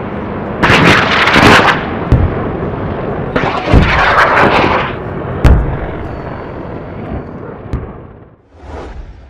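Logo-intro sound effects: a run of booming, explosion-like hits and rushing swooshes, the sharpest hit about five and a half seconds in, fading away near the end.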